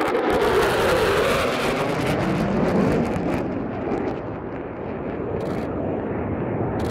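Low-flying fighter jet passing, its engine roar loud and continuous with a sweeping, phasing whoosh, easing off a little about four seconds in.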